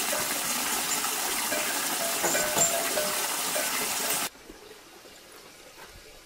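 Steady rush of running water, which cuts off suddenly about four seconds in and leaves only a quiet background.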